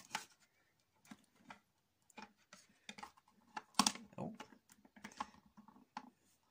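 Plastic action figures being handled and posed on a tabletop: scattered light clicks and taps of plastic, with a sharper knock a little under four seconds in.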